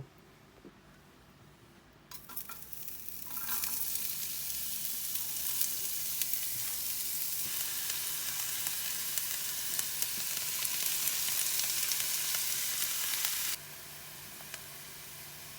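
Food frying in a hot pan, sizzling with crackles. It starts about two seconds in, builds to a loud steady hiss, and drops suddenly to a quieter sizzle near the end.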